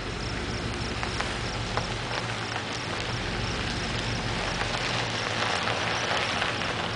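Steady outdoor rushing noise with a low hum underneath, growing louder in the second half, while a high faint chirp repeats about three times a second.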